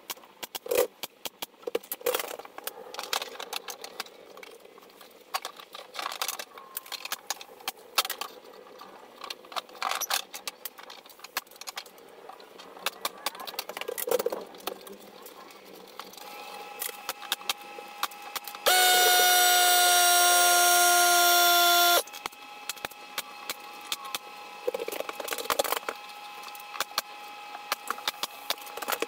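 Renovation work: scattered knocks and clicks, then a power tool's motor whining at a steady pitch for about three seconds past the middle, starting and stopping abruptly.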